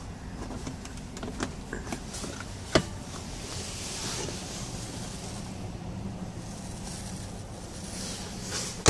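Plastic clicks and knocks from a pickup's center console and storage bin being handled and opened, over a steady low hum in the cabin. There is a sharp click about three seconds in and a louder one at the end.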